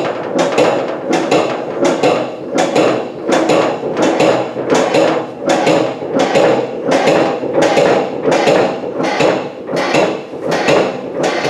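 Hydraulic foot pump of a Harbor Freight motorcycle lift table being worked, an evenly paced metallic clank with each stroke, about three strokes every two seconds.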